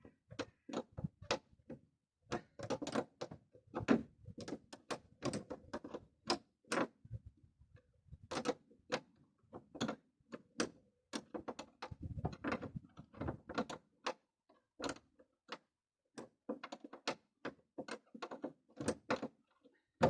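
Irregular clicks and ticks of a 12 mm wrench tightening a nut to fasten a gas strut, in quick clusters with brief pauses.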